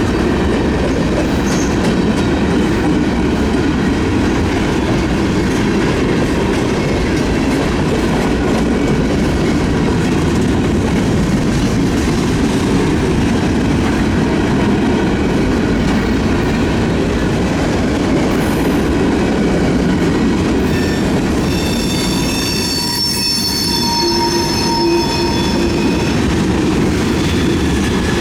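Freight train cars rolling past on the rails with a steady, loud rumble of wheels. For a few seconds near the end the wheels squeal with several high tones on top of the rumble.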